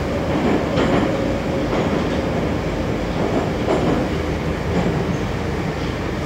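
Moscow Metro train running, heard from inside the carriage: a loud, steady rumble with a low hum, broken by a few irregular knocks.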